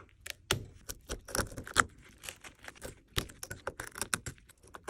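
Irregular sharp clicks and small crackles of broken phone back glass being picked and pried off with metal tools.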